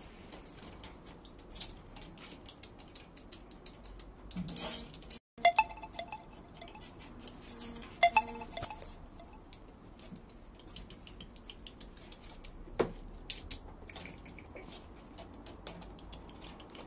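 Two bursts of loud clinks with a short ringing tone, about five and eight seconds in, and one sharper ringing clink near thirteen seconds, over light scattered ticking. The sound cuts out for a moment just after five seconds.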